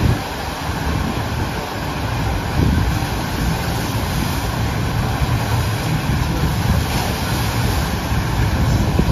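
Steady rush of water from a FlowRider surf simulator's pumped sheet wave, with wind buffeting the microphone.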